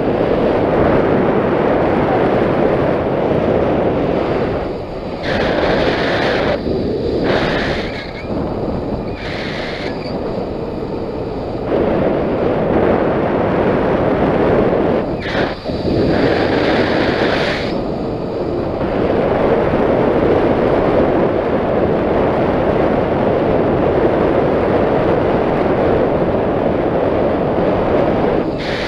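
Wind rushing hard over the microphone: a loud, continuous rush that dips briefly a few times and swells again.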